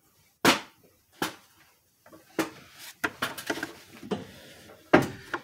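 Loose steel valve-train parts, rocker arms, pivots and bridges, clinking and clacking as they are handled and set onto the cylinder head: separate sharp clicks, with a quick run of them about three seconds in and the loudest clack near the end.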